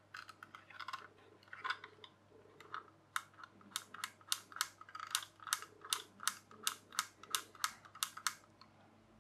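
Small plastic toy-train parts clicking and tapping as they are handled and fitted together. The clicks are irregular at first, then a fairly even run of sharp clicks comes about three a second for some five seconds.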